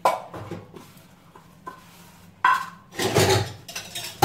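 Stainless steel utensils clanking and clattering as they are scrubbed and set down at a sink, with a louder ringing clank about two and a half seconds in.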